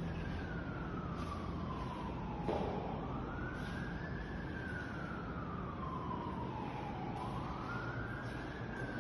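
Emergency vehicle siren on a slow wail, its pitch rising over a second or two and falling over about three, over a steady low rumble. A single sharp knock about two and a half seconds in.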